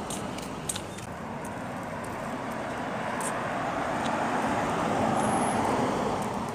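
A car passing on the road: tyre and engine noise that builds to its loudest about five seconds in and then fades away.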